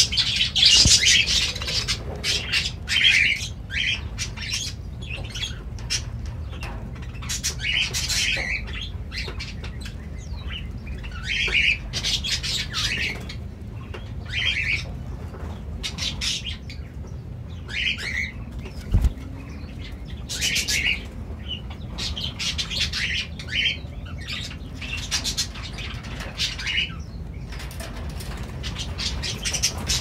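Cockatiels chirping, short calls repeated every second or two, with scattered clicks and scratches over a steady low rumble.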